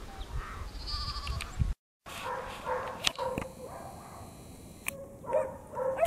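Sheep bleating, with kelpie puppies yapping as they work the sheep. The sound drops out for a moment about two seconds in.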